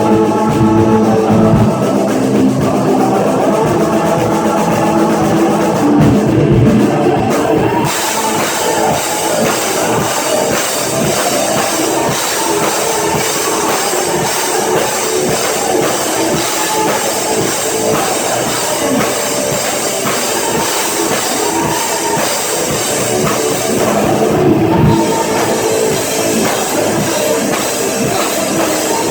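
Rock band playing an instrumental passage with drum kit and guitar. About eight seconds in the cymbals come in and the sound gets fuller and brighter; they drop out briefly near the end.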